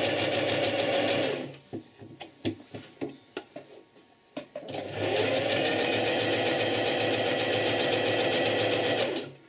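Domestic electric sewing machine stitching a seam in two runs: it runs for about a second and a half and stops, then after about three seconds of scattered light clicks it starts again, runs for about four and a half seconds, and stops near the end.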